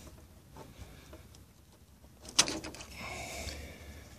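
Plastic wiring-harness connector being pulled off the fuel pump module, with one sharp plastic click about two and a half seconds in, followed by a brief rustle of handling.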